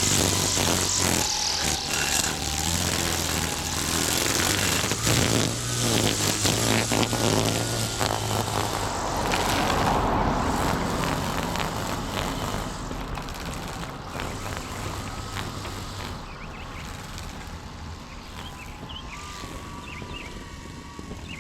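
An engine running with a steady low hum and a broad noise over it. The hum stops about nine seconds in, and the noise then fades to a lower level. Birds chirp near the end.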